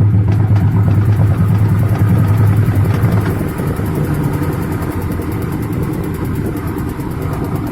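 LG WF-T7516HN top-load washing machine running on spin with a loud mechanical noise: a strong low hum over a steady rattle, which eases a little about three seconds in. The noise comes from a faulty gearbox that also lets the pulsator turn during spin.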